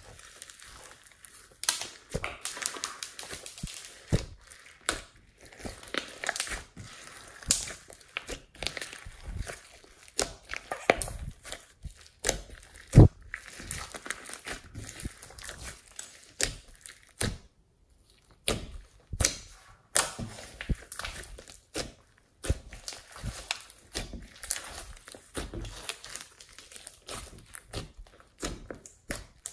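Thick glossy slime squeezed and kneaded by hand, giving a steady irregular run of wet squishes and sharp clicking pops. The loudest pop comes about 13 seconds in.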